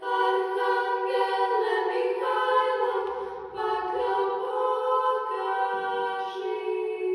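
A children's church choir singing a cappella in sustained phrases, with a brief break between phrases about three and a half seconds in.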